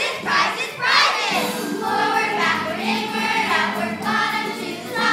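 A group of children singing together over musical accompaniment.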